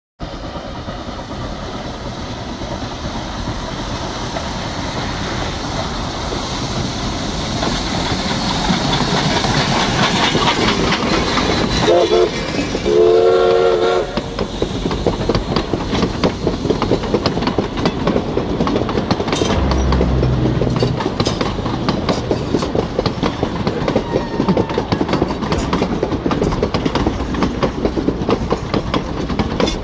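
Durango & Silverton narrow-gauge steam train approaching and passing, growing steadily louder. About halfway its steam whistle sounds a short toot and then a longer blast. The passenger coaches then roll by with a rhythmic clickety-clack of wheels over the rail joints.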